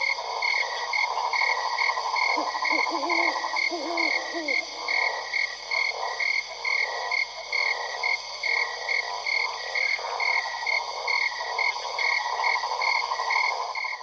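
A chorus of frogs croaking: a dense, rapid trilling runs throughout, with a higher call repeating about twice a second. A few short, lower, wavering calls come in between about two and four seconds in.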